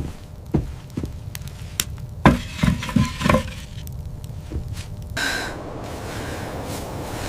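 A series of sharp knocks and cracks, with a cluster of louder cracks and a brief ringing about two to three and a half seconds in. About five seconds in, the sound changes abruptly to a steady hiss.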